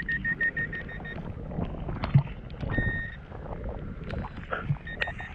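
Handheld metal-detecting pinpointer beeping fast in quick pulses as it is held against a target in a clod of wet clay. It stops about a second in, then gives a short steady tone about three seconds in and another near the end. Muddy clay squelching and crunching in a gloved hand underneath.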